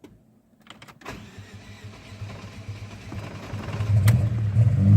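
Saab Aero engine being cranked by the starter: a click, then a pulsing cranking sound from about a second in that builds until the engine catches near the end and runs roughly. The engine has a fresh head gasket but still mixes oil and coolant, which the owner puts down to a damaged number-3 cylinder sleeve.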